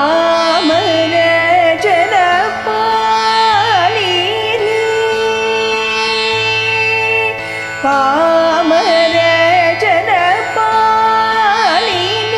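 Carnatic music in raga Simhendra Madhyamam. A melodic line with heavily ornamented, oscillating pitch glides moves over a steady low drone.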